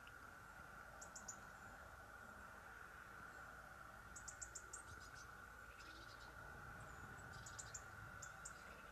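Near silence with a faint steady hum. Short runs of four or five quick, high-pitched chirps come about a second in, around four to five seconds in, and again near the end.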